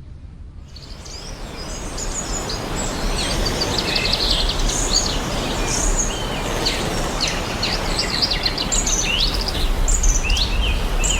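Many birds chirping and calling over a steady rushing background noise, the whole scene fading in over the first couple of seconds.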